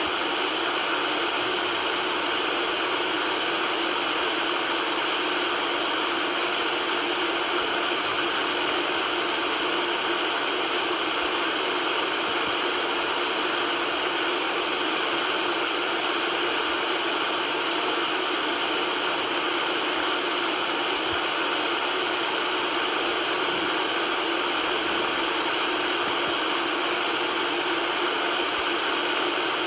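Steady white noise: a constant, even hiss with little bass and no changes.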